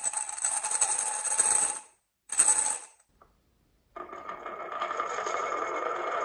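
Marbles rolling and clattering down a marble run track in two rattling runs, the second shorter, then a pause. About four seconds in, a small toy motor starts a steady whirring run.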